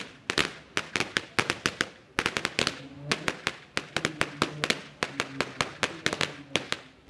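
Firecrackers going off on the ground: a rapid, irregular string of sharp bangs, several a second, with short gaps, and a faint low hum underneath in the second half.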